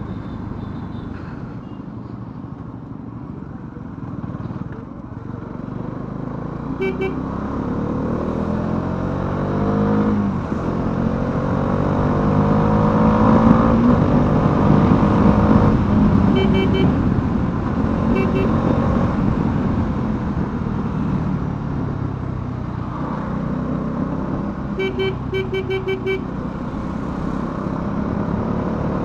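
Bajaj Dominar 400's single-cylinder engine accelerating on the move, its pitch rising, dropping at a gear change about ten seconds in, then rising again to a steady high cruise. Short horn beeps sound several times, in a quick cluster near the end.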